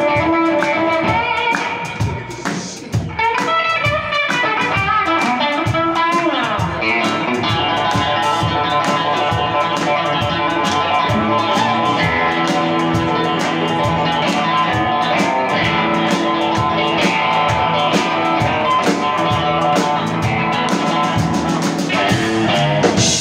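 Live blues-rock band playing an instrumental break: electric guitar lead with bending notes over upright bass and a drum kit, with a steady beat.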